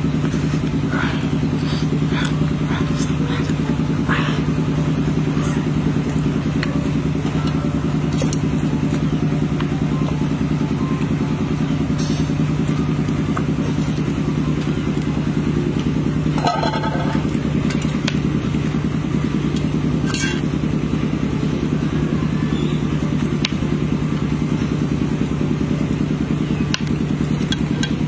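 A steady, low engine-like drone that does not change, with scattered faint clicks and ticks on top.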